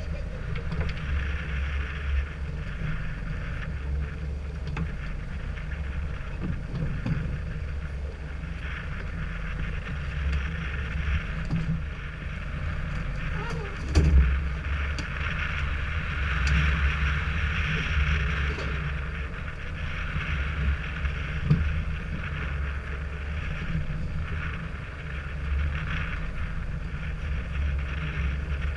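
A small fishing boat on open ocean: a steady low engine rumble, with wind and water hiss on the microphone rising and falling. Now and then there is a knock, the loudest about halfway through.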